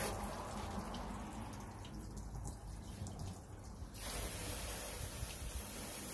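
Garden hose rinsing a car's hood, water splashing and trickling off the paint. The hiss thins for the first few seconds and comes back fuller about four seconds in.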